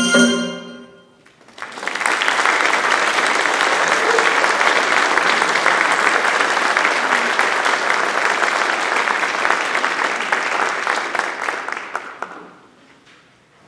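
The handbell choir's last chord rings out and dies away, then an audience applauds for about ten seconds before the clapping fades out near the end.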